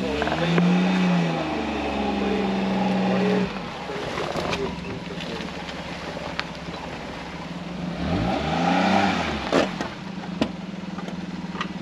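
Vehicle engine revving up and back down near the start and again about eight seconds in, with a steady engine hum between and a couple of sharp knocks near the end.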